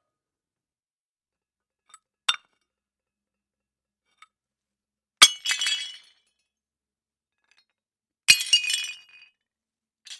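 Glass breaking: a sharp crash followed by a short spill of high tinkling shards, twice, about three seconds apart, with a small faint clink about two seconds in.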